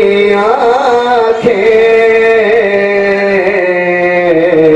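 A man's voice singing a naat through a microphone and PA, drawing out long held notes with a wavering, ornamented pitch that steps gradually lower.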